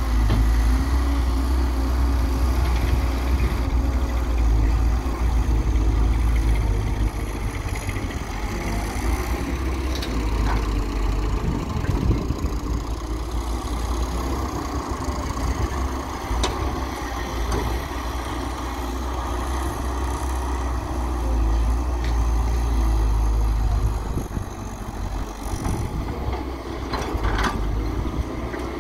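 Diesel engines running steadily: a Hyundai Robex 1300W wheeled excavator working, with farm tractors running close by. A few short sharp knocks stand out over the rumble.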